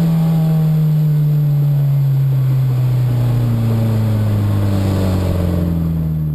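Opel C20LET 2.0-litre turbocharged four-cylinder in a Citroën 2CV, heard from inside the cabin, its engine note falling steadily as the revs drop and the car slows.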